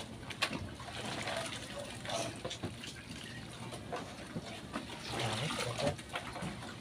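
Water sloshing and trickling in a plastic basin as a hand stirs through a pile of blue swimming crabs, with small clicks and knocks of crab shells against each other.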